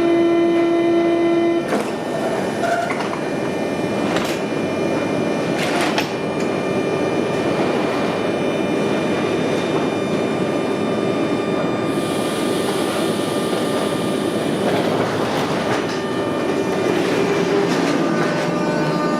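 SNCF Z 20500 double-deck electric multiple unit pulling out of the station, its wheels clacking over the rail joints and points. A steady tone sounds for about the first second and a half, followed by a few sharp clacks and continuous rolling noise.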